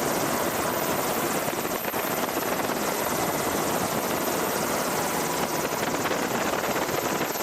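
Helicopter running steadily: a continuous, even rushing noise of engine and rotors.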